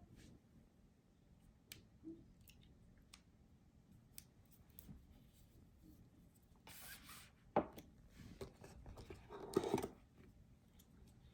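Packaging being handled: scattered small clicks and taps, a brief rustle about seven seconds in, a sharp knock just after it, and a longer rustle near the end.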